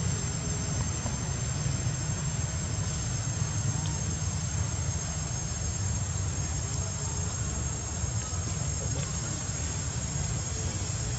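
Steady, unbroken high-pitched buzz of insects, with a continuous low rumble underneath.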